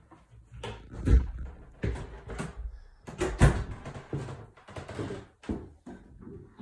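Footsteps going down a flight of interior stairs: a run of low thuds, one every half to three-quarters of a second, two of them louder than the rest.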